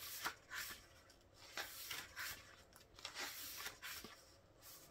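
Glossy pages of an album photo book being turned and smoothed down by hand: a series of short, soft paper rustles and slides.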